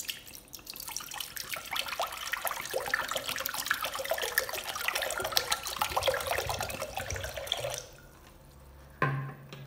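Buttermilk poured from a plastic blender jar into a steel pot, splashing and trickling steadily for about eight seconds before stopping: the draining step after churning cream into butter. About a second after the pour stops, one sharp knock.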